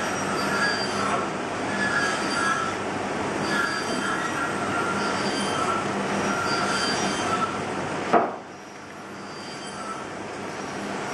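Knife cuts squeaking in pine, a short squeal about once a second, over a steady mechanical noise. A sharp knock comes about eight seconds in, after which the noise drops and slowly builds up again.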